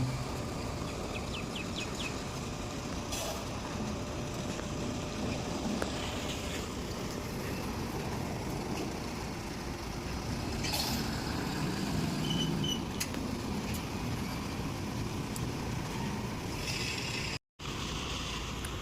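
Construction crane working: steady engine and machinery noise with a few faint clicks and short squeaks. The sound cuts out completely for a moment near the end.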